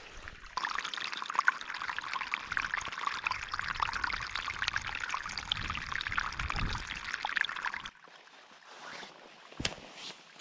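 Water from a flowing snowmelt stream pouring and splashing into a container as it is filled. The splashing stops abruptly about eight seconds in, and a single knock follows near the end.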